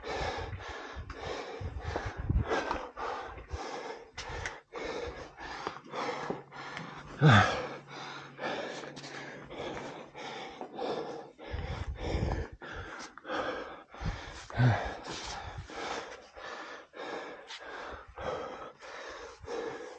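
A man breathing hard from the effort of climbing, in quick, even puffs about two to three a second. There are two louder strained gasps, about seven seconds in and again near fifteen seconds.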